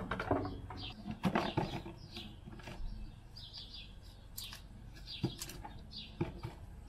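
A plastic string of LED fairy lights rustling and clicking as it is gathered and coiled by hand, the bulbs and wire knocking together in irregular bursts. Short bird chirps come and go.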